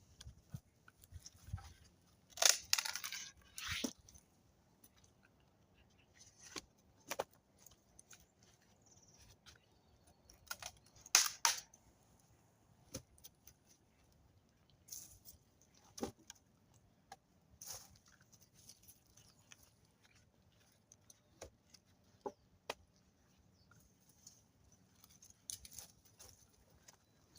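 Scattered short clicks, snaps and rustles, with louder clusters about two to four seconds in and again around eleven seconds.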